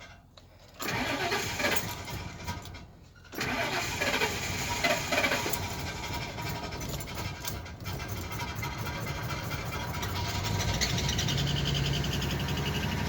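2004 Ford E-350 van's gas engine being cranked for a hard start after sitting unused a while: a short crank, a pause, then a longer crank. Near the end a steadier low hum comes in as the engine seems to catch.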